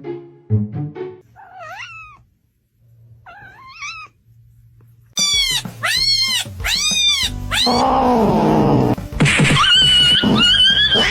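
A cat meowing: two soft meows, then a quick run of four or five loud meows, and a long wavering yowl near the end.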